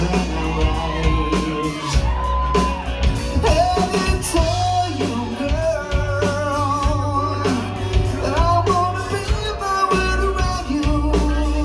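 Live rock band playing with a sung lead vocal: keyboards, electric bass, guitars and drums, with a heavy bass line and steady drum hits under held vocal notes.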